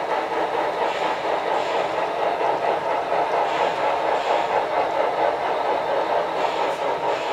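HO scale model train running on the layout: a steady rolling rumble of wheels on track.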